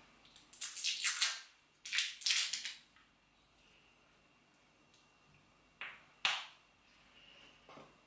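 A small spice jar being handled and opened: two scratchy rustling bursts in the first three seconds, then two sharp clicks about six seconds in.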